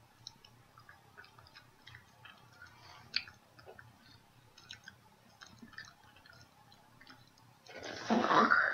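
Faint wet clicks and smacks of a jelly bean being chewed, with one sharper click about three seconds in. Near the end comes a loud burst of spitting into a paper napkin as a foul-tasting bean is spat out.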